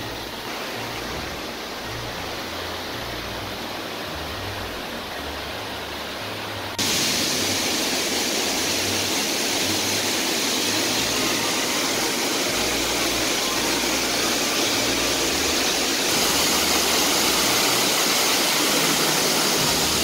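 Khlong Lan waterfall crashing onto rocks: a steady rush of falling water that jumps louder about seven seconds in.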